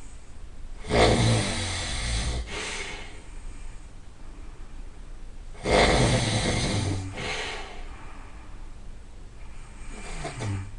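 A person snoring, two loud rasping snores about five seconds apart, each starting abruptly and fading over a second or two, with a fainter snore near the end.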